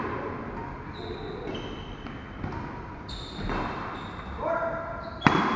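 Badminton rally on an indoor court: short high squeaks of shoes on the court surface, and a sharp crack of a racket striking the shuttlecock near the end.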